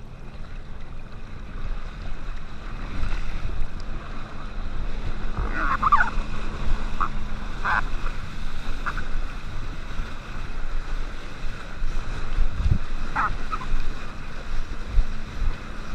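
Water rushing and splashing around a kneeboard towed at speed, with wind buffeting the microphone. A few brief squeaks come about six and thirteen seconds in.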